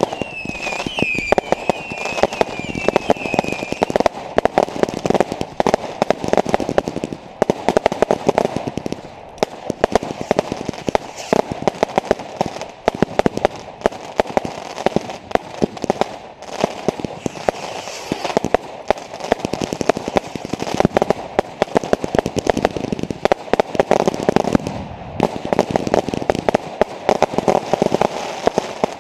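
Fireworks going off in a dense, continuous run of sharp bangs and crackles, with a wavering whistle that stops about four seconds in.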